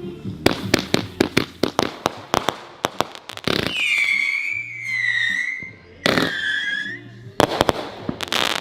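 A 65-shot, 500-gram cake firework firing. A rapid volley of sharp bangs runs for about three seconds, then shrill whistles wavering and gliding in pitch, then another burst of bangs near the end.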